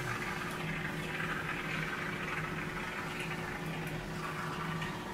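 Aerosol can of expanding spray foam hissing as foam is squirted into the gaps around a window frame, over a steady low hum.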